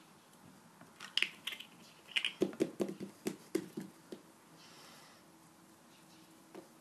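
Hands patting and pressing a piece of play dough flat on a tiled surface: a few sharp clicks about a second in, then a quick run of soft taps and knocks, about five or six a second, stopping about four seconds in.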